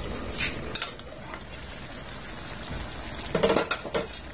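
Pork and vegetable stew simmering and sizzling in an aluminium wok. The aluminium lid is lifted off with a few metallic clinks about three and a half seconds in.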